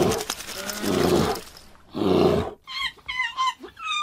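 A bear growling three times in deep, rough bursts. Near the end, a monkey gives a run of short, high chirping calls.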